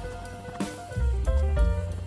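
Background music with drums, bass and guitar.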